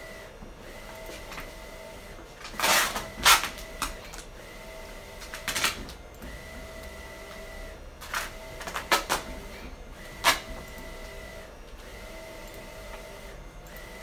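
A large sheet of printed adhesive vinyl crackles sharply several times as it is handled and tacked onto a mini-fridge door. Under it runs a steady hum from a wide-format printer, which stops and starts now and then.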